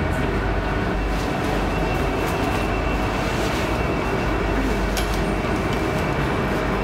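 Inside a metro train carriage: a steady rumble and hiss of the train, with a faint steady high tone and a few light clicks.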